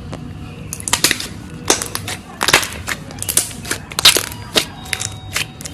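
A brittle, crunchy ASMR material being crushed: a quick, irregular run of crisp cracks and crunches starting about a second in.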